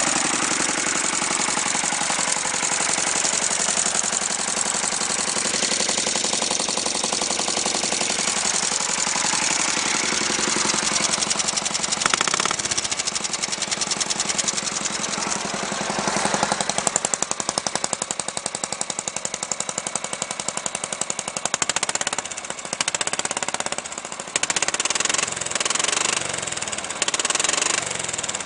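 Briggs & Stratton 14 hp V-twin running through open side pipes with a rapid, choppy exhaust beat, on stale gas from the season before. The sound dips and jumps in level a few times in the second half.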